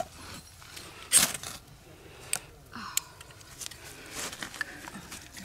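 Ferrocerium fire-starter rod scraped with its striker, several short rasping strikes throwing sparks onto dryer-lint tinder. The loudest strike comes about a second in, with fainter ones after.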